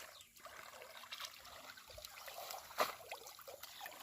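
Water trickling and sloshing, with small scattered clicks and one sharp knock about three-quarters of the way through.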